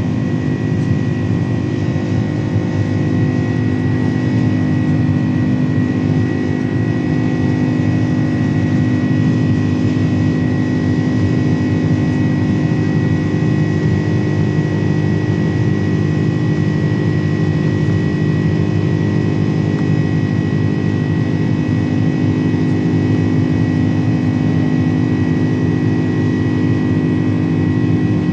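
Steady engine and air noise inside the cabin of a Boeing 767-300 airliner, with a fixed high whine over a low, even hum that does not rise or fall.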